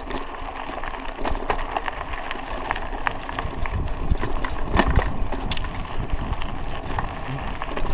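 Raleigh Ascent mountain bike rolling over a rutted dirt road: a steady tyre rumble with scattered knocks and rattles from the bumps, the sharpest about five seconds in, and wind on the microphone.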